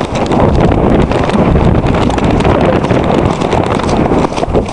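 Wind rushing loudly over the rider's camera microphone as a coloured cob canters, with its hoofbeats under the wind noise.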